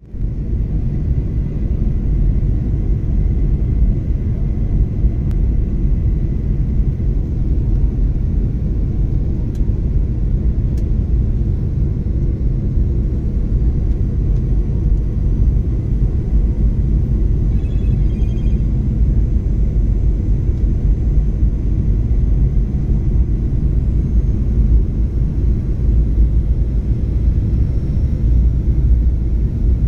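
Airliner cabin noise on descent to land: the steady low rumble of the jet engines and rushing air heard from a window seat, with a faint steady high whine above it.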